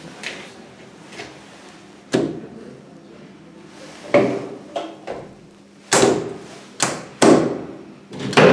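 A series of sharp knocks and thumps in a small elevator car, about seven in all, the loudest coming in quick succession over the last few seconds.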